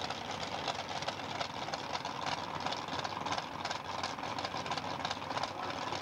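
Small-block Chevrolet V8 of a Super Comp dragster idling with a rapid, uneven beat.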